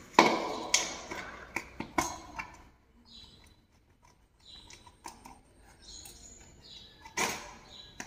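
Plastic bottom canopy of a ceiling fan being handled and slid down the downrod: a run of sharp knocks and clicks in the first two and a half seconds, then faint handling and rustling, with a brief louder scuff near the end.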